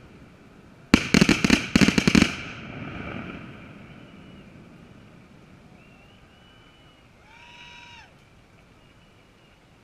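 A firework shell bursting with a sharp bang, followed by about a second of dense crackling pops that die away.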